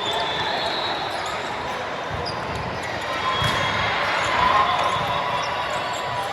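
Volleyballs thudding against the hard floor or being struck, in a large hall, with a few short sneaker squeaks on the court.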